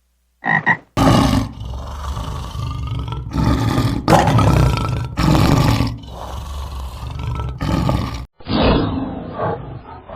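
A large animal roaring in a series of long, loud calls with short breaks, beginning about a second in. A different, duller sound takes over near the end.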